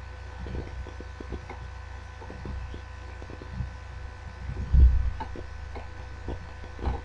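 Steady electrical hum with a thin high whine from the recording setup, under scattered faint clicks of a computer mouse scrolling a list, and a dull low thump a little under five seconds in.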